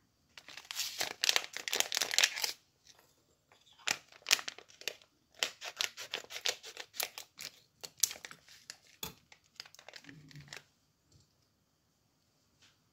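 Packaging being crinkled and torn, in irregular crackling bursts that are loudest in the first two seconds and stop about ten seconds in.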